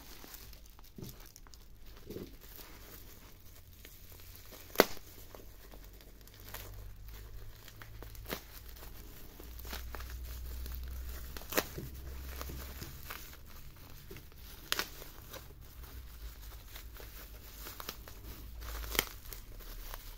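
Bubble wrap crinkling and rustling in the hands while the tape and wrap are cut and torn open with a snap-off utility knife, with four sharp snaps or clicks spread through, the loudest about five seconds in.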